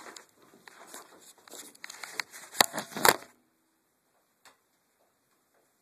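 Rustling and scattered clicks, with two sharp, louder clicks about two and a half and three seconds in, then near silence with one faint click.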